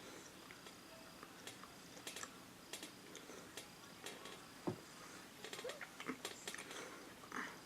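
Faint, irregular small clicks and mouth noises of someone chewing food close to the microphone.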